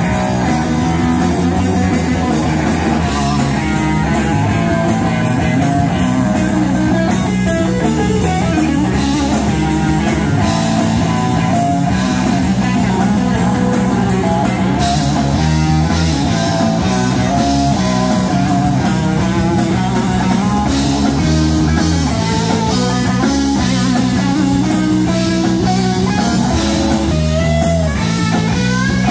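Live rock band playing an instrumental stretch: electric guitar through Marshall amps over bass guitar and a drum kit, loud and steady.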